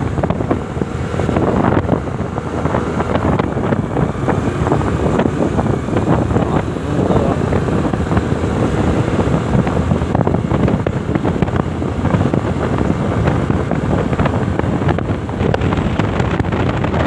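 Wind buffeting the microphone of a moving two-wheeler, over the engine and road noise; a loud, steady rumble.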